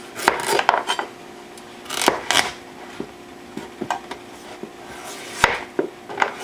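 Chef's knife cutting through raw butternut squash and knocking on a plastic cutting board: about four groups of sharp knocks with short pauses between, the loudest a little after five seconds in.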